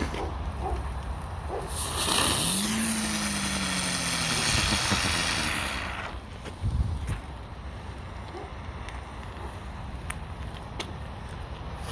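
Small spinning firework, a 'hurricane' spinner, catching about two seconds in and hissing loudly for about four seconds, with a whirring tone that rises quickly and then slowly falls as it spins down.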